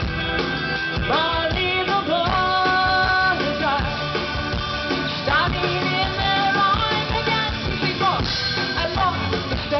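A live rock band playing: electric and acoustic guitars, bass and drums, with a held, gliding lead melody over them.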